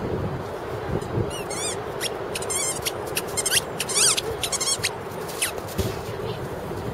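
A Weimaraner whining in a series of short, high, wavering squeals, excited during ball play.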